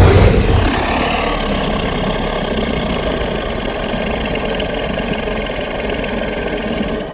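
Designed monster sound effect for the fictional creature Spinodra: a long, rumbling roar that hits hardest at its start, then holds steady with a thin high tone running through it before cutting off near the end.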